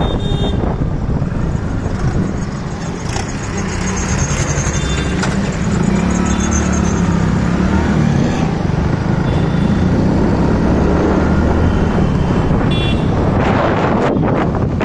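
Engine and road noise from a vehicle moving through city traffic, with wind buffeting the microphone. The engine drone grows louder about six seconds in. A few short high beeps cut through near the start, about five seconds in and near the end.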